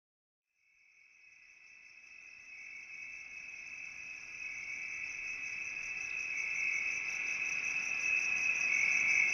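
Steady, high insect-like chirring with an even pulse. It fades in after about half a second of silence and keeps getting louder.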